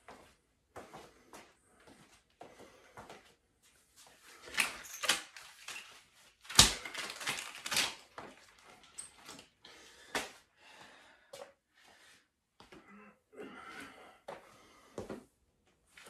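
Workout movement noise in a small room: soft irregular footfalls and shuffles on an exercise mat. In the middle there is a burst of rubbing and rustling as a fabric resistance band is worked off the legs, with one sharp knock about six and a half seconds in.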